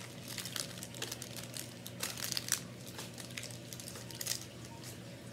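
Plastic candy packaging and plastic Easter-basket grass crinkling in scattered light rustles as small gummy candies are handled and dropped into baskets, over a faint steady low hum.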